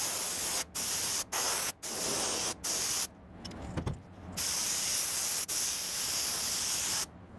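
Compressed-air spray gun with a siphon cup spraying upholstery spray glue: several short hissing bursts in the first three seconds, a pause, then a longer steady spray with one brief break.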